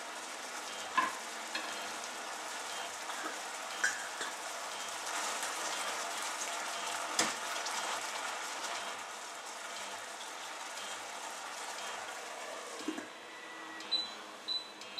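Chicken simmering and sizzling in broth in a stainless steel saucepan: a steady bubbling hiss with a few sharp clicks. Near the end the pan's steel lid is set on with a clink, followed by short high beeps from the hob's touch controls as the heat is turned down.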